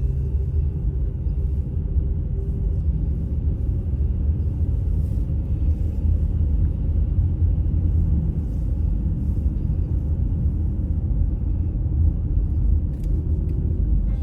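Steady low rumble of a car driving: engine and tyre road noise.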